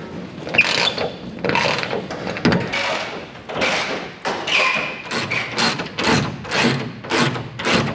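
Nut being turned off a bolt through a fiberglass hull panel with an adjustable wrench: a rhythmic run of short scraping strokes, about two a second, with a few brief squeaks.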